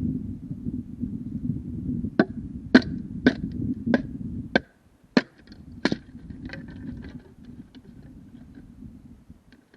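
Bamboo cracking as a six-way bamboo splitter is driven down the culm: a run of about seven sharp cracks from about two to six seconds in, then fainter crackling. A low rumble underneath stops about halfway through.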